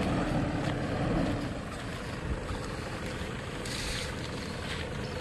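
Pickup truck engine running as the truck drives slowly, with wind rumbling on the microphone.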